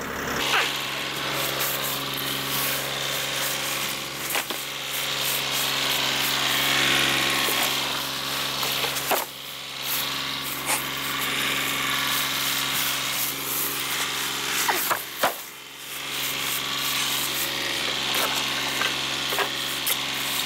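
Kioti compact tractor's diesel engine idling steadily, with a rough hissing noise over it that swells and fades and drops away briefly twice.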